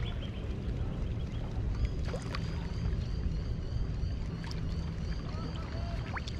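Steady low rumble of wind on the microphone and small waves lapping against a rocky shoreline, with a few faint high ticks.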